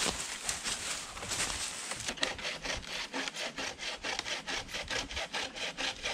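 Hand saw cutting through wood in steady back-and-forth strokes, the strokes quickening about two seconds in.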